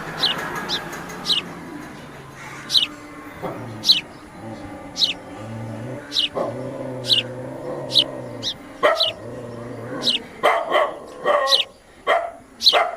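Sparrows chirping: short, high, downward-sweeping chirps about once a second, with a burst of louder, fuller calls in the last few seconds.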